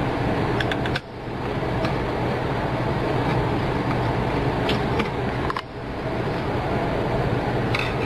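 Steady hum and hiss of a running fan or similar machine, dipping briefly twice, with a few faint clicks as a screwdriver turns the Torx screws in a hard drive's metal cover.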